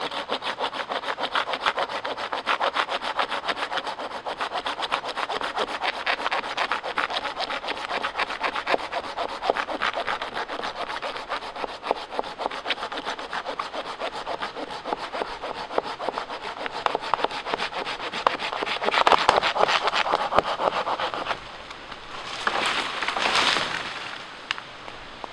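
A small Silky folding handsaw cutting through a dead but sound cherry limb in rapid back-and-forth strokes for about twenty seconds. The strokes stop, and a couple of seconds later a short rustling crash follows as the cut section drops away.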